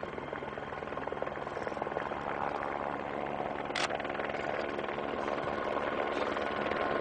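Steady drone of an aircraft in flight, slowly growing louder, with a single camera shutter click about four seconds in.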